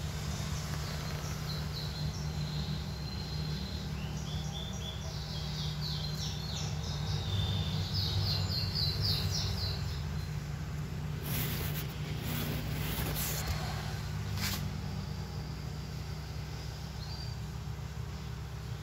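Small birds chirping in quick runs of short high notes through the first half, over a steady low background rumble. A few brief rustling noises come about two-thirds of the way through.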